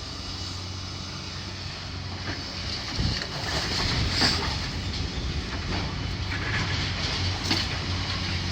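Heavy demolition machinery running with a steady low engine hum, with scattered clanks and scraping of debris and a thump about three seconds in.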